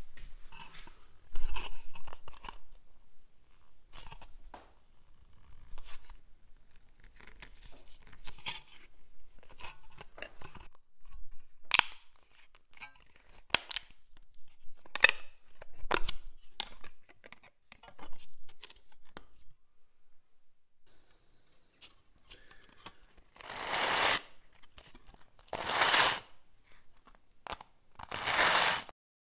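Hammered copper strip handled on a workbench with short scrapes and clicks, then rubbed edge-down on sandpaper over a granite plate: three loud rasping sanding strokes about a second long each near the end.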